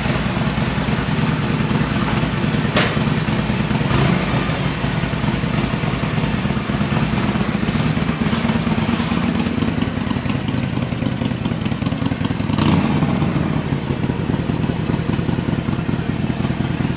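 Harley-Davidson V-twin motorcycle engine idling steadily, with a few short clicks or knocks about three, four and thirteen seconds in.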